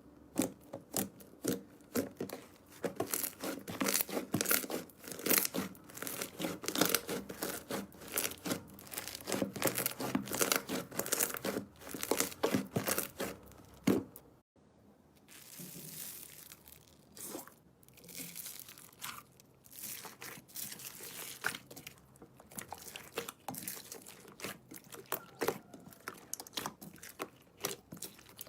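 Slime being squeezed and stretched by hand, making rapid crackles and pops. They are dense in the first half, cut off suddenly about halfway through, then return more sparsely.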